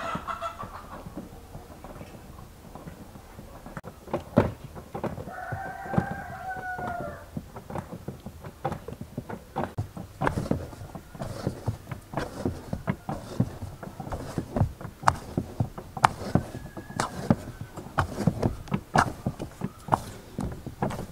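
Bread dough being kneaded by hand in a large aluminium bowl: repeated soft thumps and slaps as fists press and fold the dough against the metal, coming faster in the second half. A rooster crows once about six seconds in.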